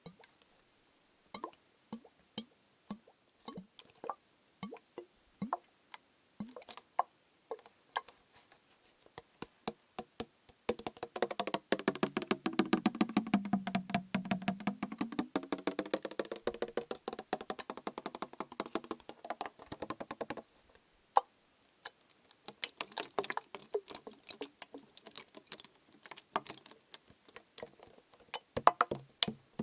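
Fingertip tapping on a plastic bottle partly filled with liquid: scattered single taps, then from about ten seconds in a fast run of taps for about ten seconds with a hollow ringing tone whose pitch slides down and back up, then scattered taps again.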